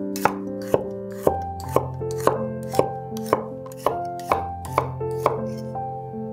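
Knife chopping on a cutting board in a steady rhythm of about two strokes a second, stopping about five seconds in, over soft background music with held notes.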